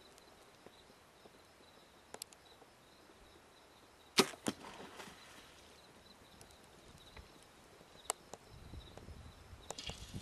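A PSE X-Force compound bow fired once, about four seconds in: a single sharp snap of the string, followed by a second or so of noise. A second, smaller sharp click comes about four seconds later.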